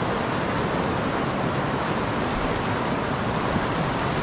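White-water river rapids rushing steadily close by, a continuous even roar of churning water.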